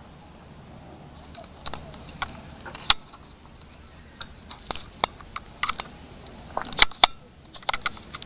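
Handling noise from a camera being moved and pointed down: a scatter of irregular sharp clicks and taps, the loudest around 3 s and around 7 s in.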